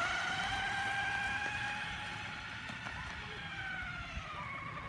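Electric motor of a radio-controlled truck whining steadily as it tows a stroller with a baby in it, its pitch sagging about four seconds in.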